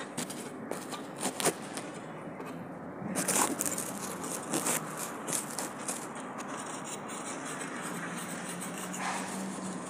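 Scattered scrapes and clicks, densest in the first half, over a steady background.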